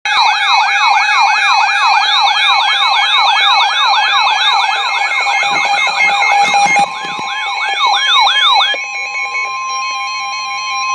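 Emergency Alert System alarm tones: a siren-like electronic tone falling in pitch about three times a second over steady electronic tones. The siren stops about nine seconds in, leaving only the steady alert tones.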